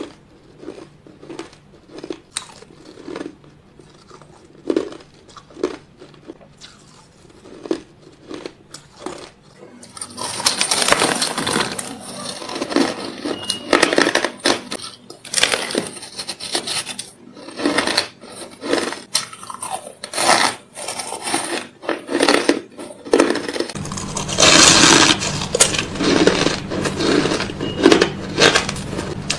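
Ice being bitten and crunched between the teeth close to the microphone: a series of sharp crunches, sparse at first and then louder and much denser from about ten seconds in.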